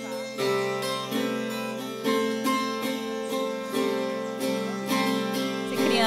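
Background music: an acoustic guitar playing plucked notes and chords, with a new note about every half second.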